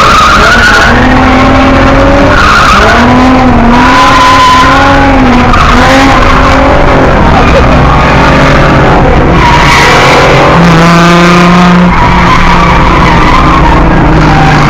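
A drift car on track, its engine revving up and down over and over while the tyres squeal as it slides; very loud.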